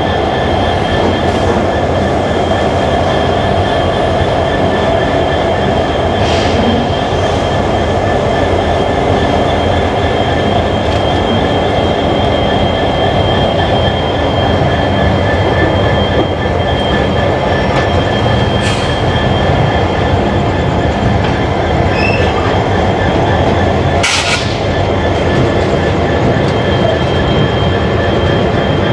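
Express passenger train coach running on the track as it leaves a station: a loud, steady noise of wheels on rails, with a steady high whine above it and three sharp clacks spread through.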